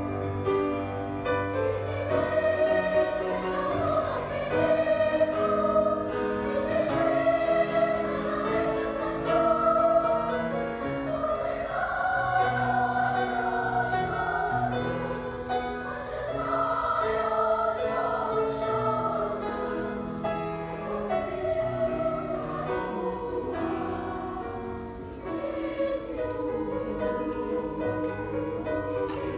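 Music with choral singing: several voices holding long, sustained notes in a slow, operatic style.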